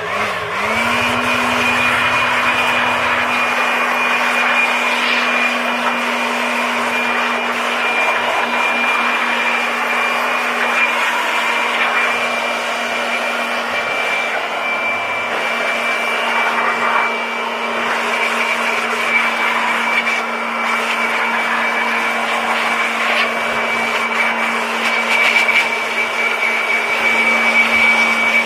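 High-power electric air blower spinning up about a second in, then running steadily with a high whine and rushing air as it blows dust and cobwebs out of the TV's insides.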